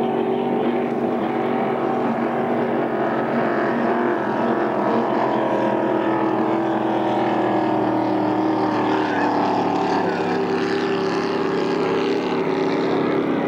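Racing hydroplane engines running at speed, a steady, even drone as the boats run down the course.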